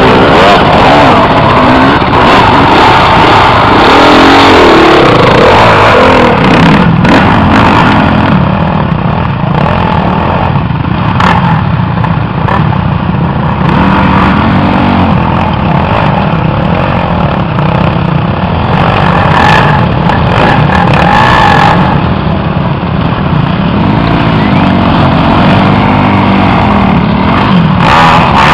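Several off-road dirt bike engines revving hard and overlapping as they climb a steep, loose hill under heavy load, the pitch rising and falling again and again.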